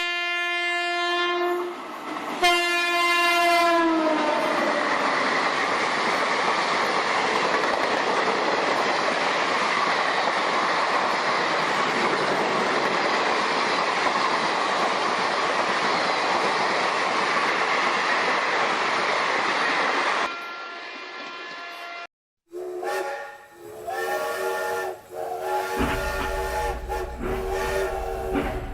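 Train horn sounding two blasts, the second dropping in pitch at its end as the train passes, then the steady rush and clatter of the train going by. After a short break, a train horn sounding several notes together blows a series of short blasts over a low rumble.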